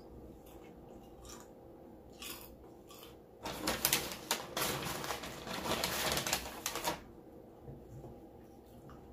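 A few soft clicks, then about three and a half seconds of dense, close-up crackling as food is handled and eaten, starting about three and a half seconds in.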